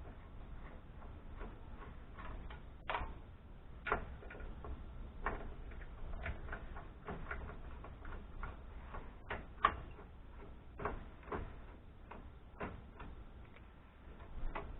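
Irregular light clicks and clinks of a screwdriver and loose steel screws as an amplifier is taken apart by hand. There are about a dozen at uneven spacing, the sharpest a little before ten seconds in.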